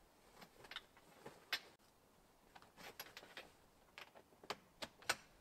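Irregular sharp clicks and ticks, about a dozen, over a quiet background, the loudest about one and a half seconds in and near the end.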